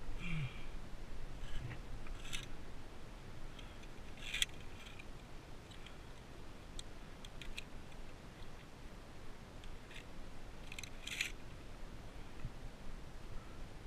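Via ferrata lanyard carabiners clicking and clinking against the steel safety cable: a handful of short metallic clicks a few seconds apart.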